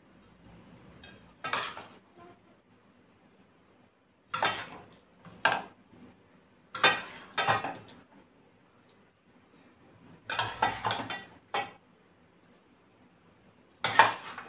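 A serving spoon knocking and scraping against the rim and side of a metal cooking pot as pieces of chicken in gravy are spooned onto rice. The separate clinks come a second or two apart, with a quicker run of them about ten seconds in.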